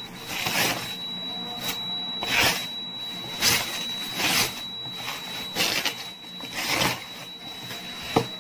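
Plastic wrapping crinkling and rustling in about seven separate bursts, roughly one a second, as it is pulled and torn off a cardboard box, with a sharp click near the end. A steady high-pitched tone runs underneath.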